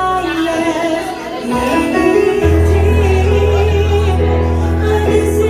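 A woman singing a slow ballad into a microphone over amplified backing music, with deep sustained bass notes coming in about halfway through.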